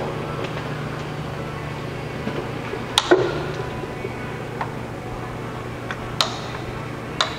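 Speed-change levers on the geared head of a Wilton 2402 drill press being shifted, giving about six metallic clicks and clunks, the loudest a double clunk about three seconds in, over a steady low hum.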